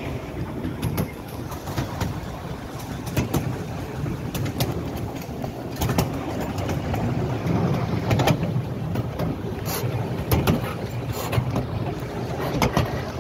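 Ride-on miniature railway train running along the track, heard from an open passenger car: a steady low rumble of wheels on rail, with irregular clicks and knocks throughout.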